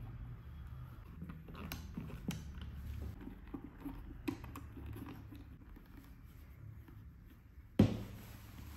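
Hands handling a Bell Bullitt helmet and its clear bubble visor: soft rubbing with scattered small clicks and taps from the shell and visor snaps, and one sharp knock near the end.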